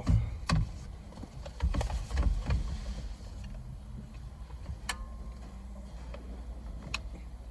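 Scattered clicks and knocks of hand work on a car's steering wheel and its fittings: a few dull thumps about two seconds in, then single sharp clicks near five and seven seconds, over a steady low rumble.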